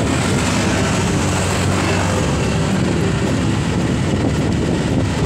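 Steady rush of wind and road noise on a moving motorcycle, with the engine running underneath.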